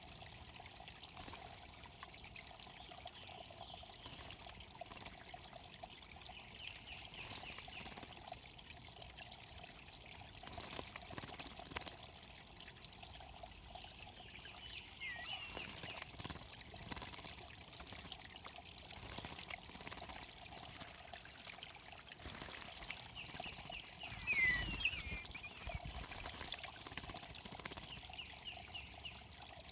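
Water trickling steadily at a small bird pond, with a few short bird chirps over it, the loudest near the end.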